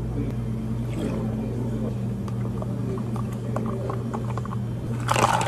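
Steady low hum of cafe machinery under small clicks and knocks of drink-making handling, then a louder, noisy clatter near the end.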